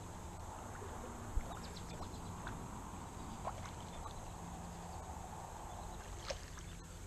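Faint steady water noise while a hooked catfish is fought in, with a few light clicks, a low thump about a second and a half in, and a sharp splash near the end as the fish thrashes at the surface.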